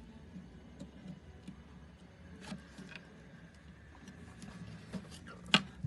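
Scattered small clicks and taps of electronic components and wires being handled and pushed into a breadboard, with one sharper click near the end.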